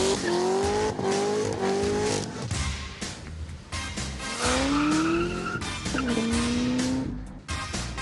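Corvette ZR1's supercharged V8 revving hard as the rear tyres spin and screech in a smoky drift, its pitch climbing, dropping and climbing again several times. Music plays underneath.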